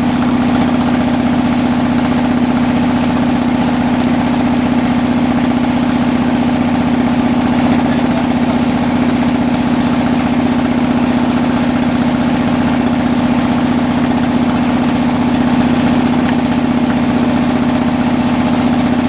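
Engine running at a constant speed, a loud steady hum with no change in pitch.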